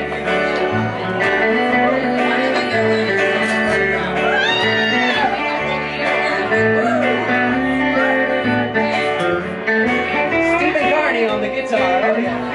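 Small country band playing an instrumental passage: an electric guitar lead with bent notes over a stepping upright bass line and acoustic guitar.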